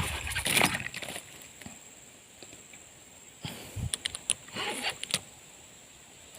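Scattered rustles, scrapes and clicks from handling fishing tackle and a freshly hooked snakehead. There is a loud flurry in the first second and another from about three and a half to five seconds in.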